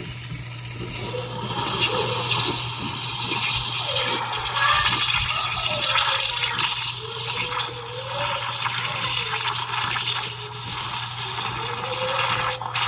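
Espresso machine pump buzzing steadily while water gurgles and sputters out of the steam wand. The machine has built no pressure, so the wand spills water instead of steam.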